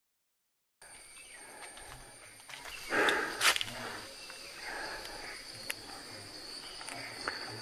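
Insects chirring steadily in forest, one even high tone, after a second of dead silence at the start. A short, loud burst of noise comes about three seconds in.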